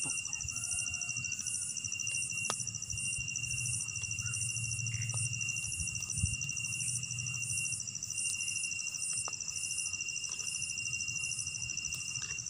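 Night insect chorus: two high, continuous trills hold steady throughout, with a higher chirp pulsing about once a second above them. A few faint clicks sound over it.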